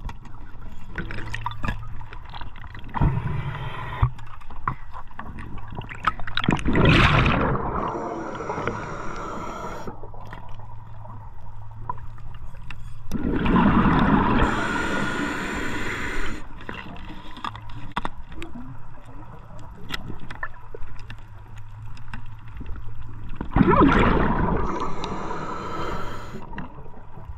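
A scuba diver breathing underwater through a regulator: three loud bursts of exhaled bubbles, some seven to ten seconds apart, with small clicks and a low water rumble between them.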